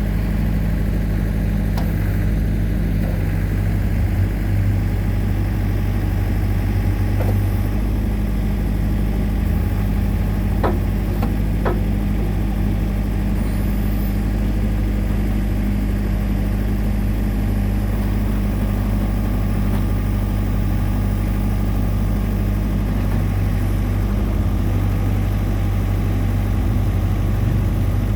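New Holland LB75 backhoe loader's diesel engine running at a steady speed, with two sharp knocks about a second apart near the middle.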